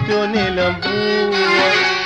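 Taarab orchestra music, with bowed strings carrying a held melody that slides between notes over a steady low percussion pulse.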